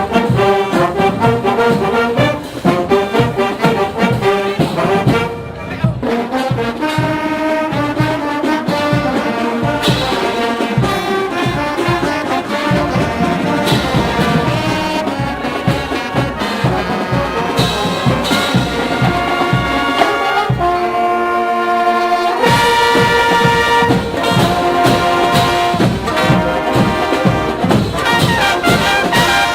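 Marching band playing a brass tune, trombones and trumpets, over a steady drum beat.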